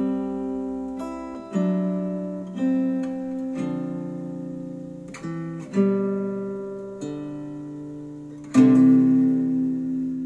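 Acoustic guitar music with slow plucked chords, each ringing out and fading, played through Polk Audio bookshelf speakers on a Yamaha R-S202 receiver, switching partway through from the XT20 pair to the ES20 pair.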